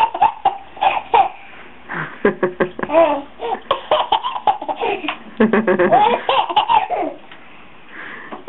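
A baby laughing in repeated short bursts of giggles and belly laughs, with a brief lull near the end.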